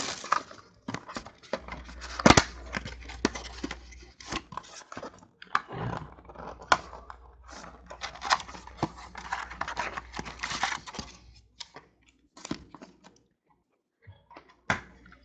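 Plastic wrapping on a sealed box of trading cards being torn and crinkled off, in irregular crackles and snaps that thin out and stop near the end.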